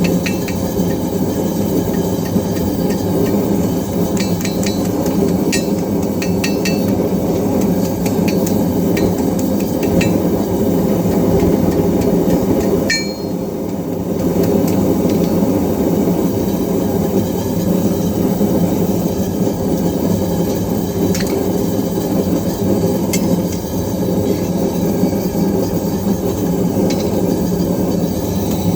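Hammer blows on hot iron at the anvil while forging hinges, striking in scattered groups with short metallic rings. They sit over a loud, steady roar that runs throughout.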